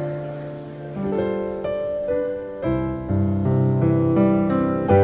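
Electric keyboard playing slow held chords that change every half second or so from about a second in.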